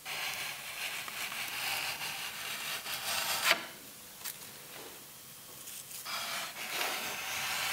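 Freshly sharpened old chisel paring curled shavings off a brace on a wooden guitar top: a dry scraping shave in two long passes, the first ending with a small click.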